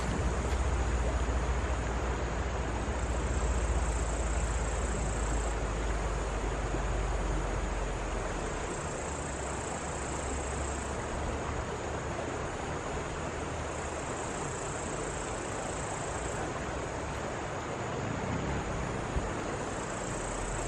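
Steady rushing outdoor night ambience, with a deep rumble over roughly the first eight seconds and a thin high buzz that swells and fades four or five times.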